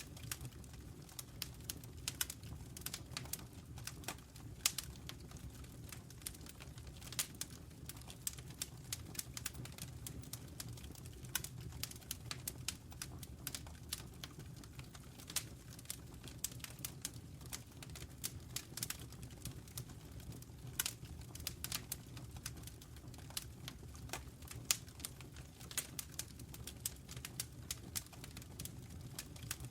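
Wood fire burning in a fireplace, crackling: irregular sharp pops and snaps, several a second, over a steady low rumble.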